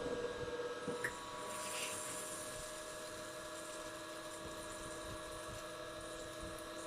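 A single sharp click about a second in, from the wall mixer's click-type water-diversion cartridge being switched, over a steady hum.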